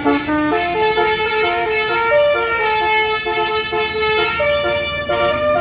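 Basuri telolet bus horn playing a tune, its tones stepping quickly from note to note.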